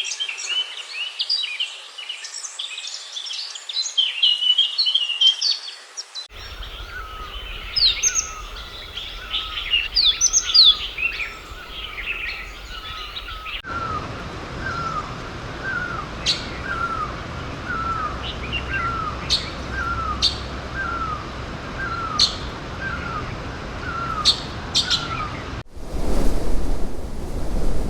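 Songbirds chirping and singing, a dense chorus of overlapping calls. After a cut, one bird repeats a short falling note a little over once a second amid a few sharp chirps, and about two seconds before the end a loud low rushing noise like wind or surf takes over.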